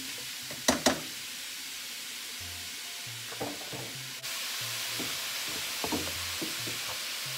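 Raw ground beef sizzling steadily as it fries in a hot nonstick skillet while being stirred with a spatula. Two sharp knocks of the spatula against the pan come just under a second in, with a few softer knocks later.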